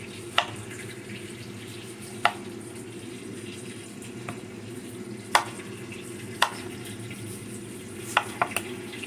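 A kitchen knife knocking on a wooden cutting board while slicing mango: single sharp knocks every second or two, then a quick run of three near the end, over a steady low background noise.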